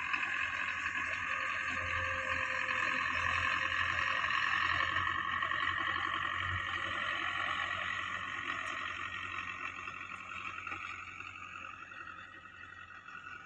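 Belarus tractor's diesel engine running steadily under load as it pulls a laser land leveler over dry soil. It grows a little louder toward the middle, then fades as the tractor moves away.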